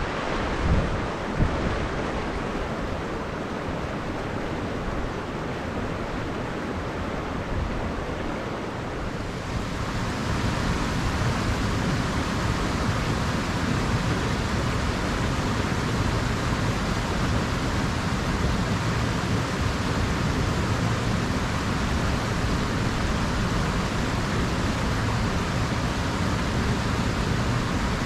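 Steady rush of a flowing river, with wind buffeting the microphone in the first several seconds. About ten seconds in, the rushing spreads higher and gets a little louder, then holds steady.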